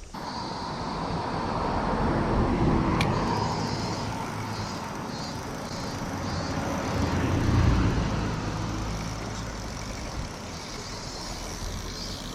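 Road traffic passing, a steady noise that swells twice as vehicles go by, with a faint pulsing high buzz in the background.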